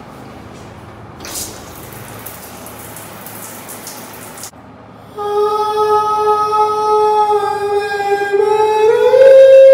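Campground shower head spraying water with a steady hiss. About five seconds in, a person's voice takes over, singing one loud long held note that steps up in pitch near the end.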